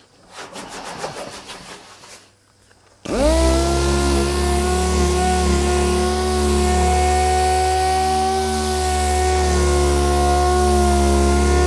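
Random orbital sander working the painted boot lid of a car: a rhythmic rasp of the pad on the panel, then about three seconds in the motor cuts in to a loud, steady whine over a low hum that holds.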